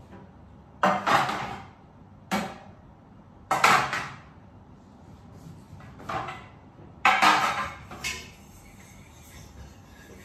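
Kitchenware being handled: a string of sharp knocks and scrapes of pots, utensils and dishes, six in about seven seconds, each dying away within a second.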